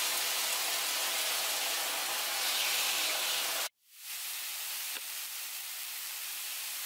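Marinated chicken breasts sizzling on a hot griddle pan, a steady hiss. A cut a little under four seconds in breaks it off, and the sizzle resumes somewhat quieter as the breasts sear.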